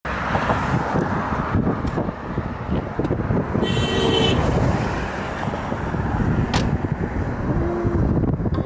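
Car engine running with a low, uneven rumble; a short horn-like tone sounds about four seconds in, and there is a sharp click a little later.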